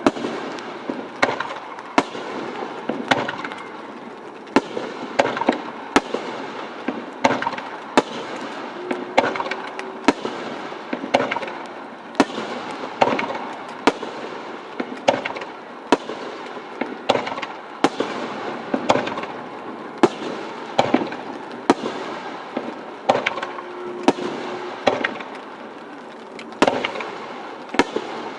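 Aerial fireworks shells bursting in quick succession: sharp bangs about once a second, with crackling between them.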